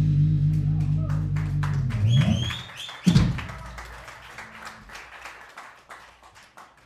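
Electric bass holding a low ringing note over drums and cymbal wash, then a sliding bass note and one loud final hit about three seconds in, as a live bass-and-drums song ends. The sound then dies away with a few scattered light taps.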